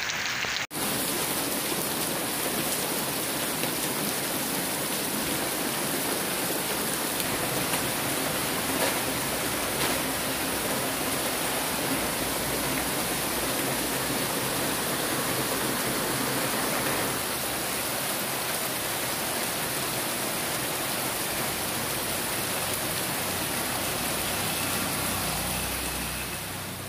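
Steady hiss of heavy rain falling. It cuts out briefly under a second in, then carries on evenly and fades away near the end.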